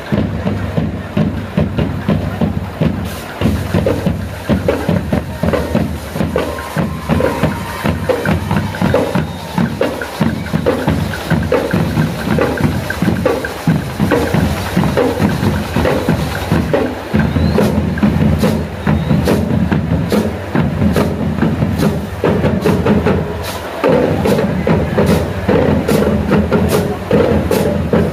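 School marching band drum section playing a march rhythm on snare and bass drums, with sharper, more regular strokes from a little past midway.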